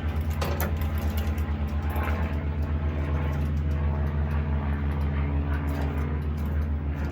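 An engine running steadily at idle: a low, even hum that pulses several times a second, with a few faint clicks over it.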